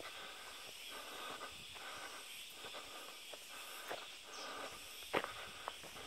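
Footsteps on a dirt forest path at a walking pace, over a steady hiss. A sharp click about five seconds in is the loudest sound.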